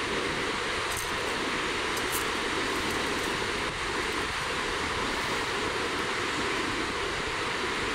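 Breaking ocean surf: a steady, continuous wash of noise.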